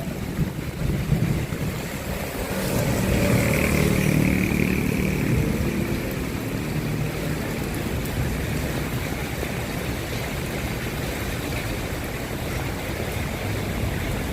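Steady rain noise with a heavy low rumble. It swells louder from about two to five seconds in, then settles back to a steady rush.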